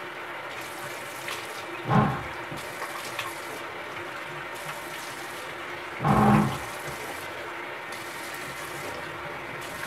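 Water running steadily from a sink tap as lather is rinsed off a face, with two short louder bursts about two and six seconds in.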